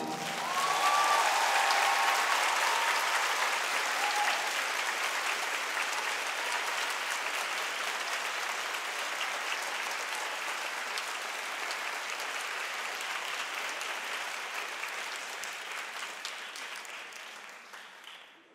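Theatre audience applauding, loudest a second or two in, then slowly dying away and fading out near the end.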